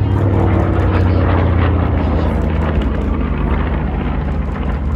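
Twin piston engines of a propeller aircraft passing low overhead, a loud steady drone.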